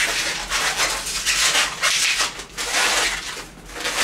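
Hands twisting an inflated 260 latex modelling balloon into pinch twists, the latex rubbing in irregular scratchy bursts.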